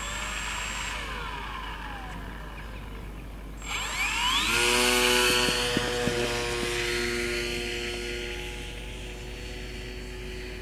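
Brushless electric motor and propeller of an RC model plane: a short blip of throttle that winds back down, then about four seconds in it spools up quickly to a steady high-pitched whine that holds and slowly eases off.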